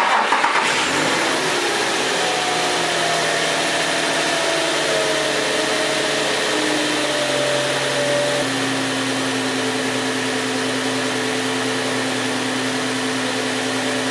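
Infiniti G35's 3.5-litre V6 idling. The idle speed eases slowly down, then drops a step about eight seconds in and holds steady.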